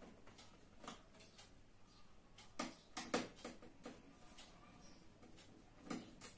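Screwdriver clicking and tapping against screws and the metal chassis on the back of an LED TV being taken apart: scattered sharp clicks, with a quick cluster about midway and another click near the end.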